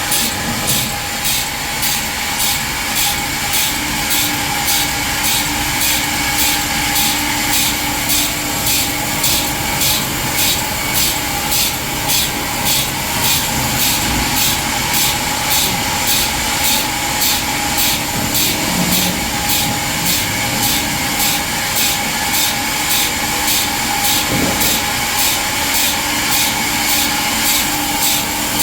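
Band sawmill cutting through a walnut log: a steady, loud machine noise with a regular pulsing about twice a second.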